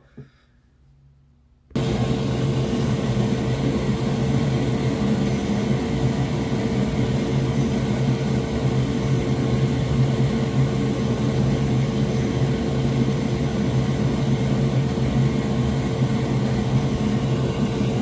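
Steady whirring of an electric blower fan with a constant low hum. It switches on abruptly about two seconds in and runs evenly.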